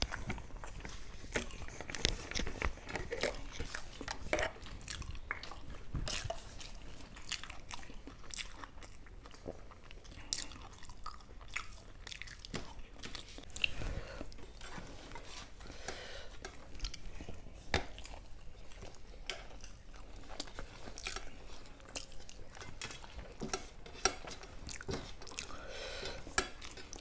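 A person chewing and biting food close to the microphone: steady chewing with many small, irregular mouth clicks.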